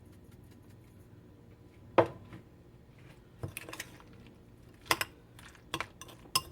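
Kitchen utensil clicks and taps as pepper is added to a bowl of coleslaw dressing: about six short, sharp knocks spread over several seconds, the loudest about two seconds in.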